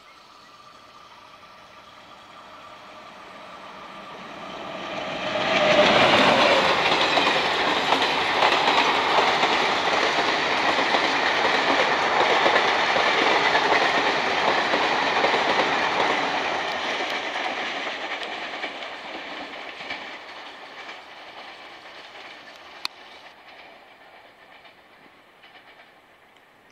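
A WDM-2 diesel-electric locomotive with an ALCO 251 V16 engine passes at over 100 km/h. Its engine sound builds as it approaches, and the engine note drops in pitch as it passes about six seconds in. About ten seconds of wheel and rail noise from the coaches follow, then it fades as the train moves away.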